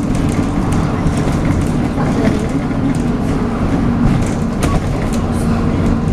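MAN 18.240LF Alexander Enviro 300 bus under way, heard from on board: the diesel engine runs steadily with the vacuum-cleaner-like 'hoover' note, over a low rumble and light clicks and rattles.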